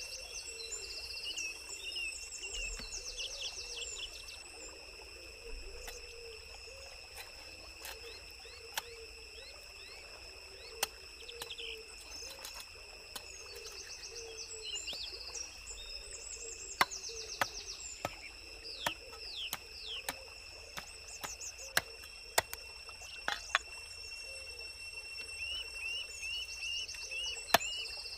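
Cleaver chopping a raw chicken on a wooden chopping block: sharp single knocks, a few at first and then more often through the second half, the loudest sounds here. Under them a steady high insect whine and runs of quick falling bird chirps several times.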